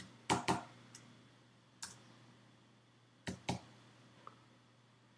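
Computer keyboard keys tapped a few at a time: a quick pair of keystrokes, a single one about two seconds in, another quick pair near three and a half seconds and a faint tick after.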